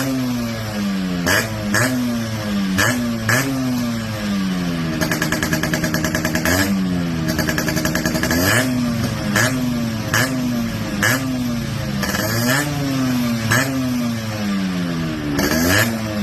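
Yamaha RX100's two-stroke single-cylinder engine on its stock exhaust being revved in repeated quick throttle blips, each note jumping up and falling away. Twice, about a third of the way in, the revs are held high for a second or two.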